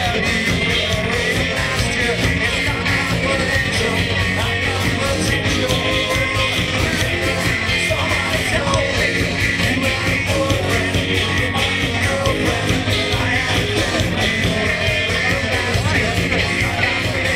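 Rock music with singing, played loud over a steady drum beat.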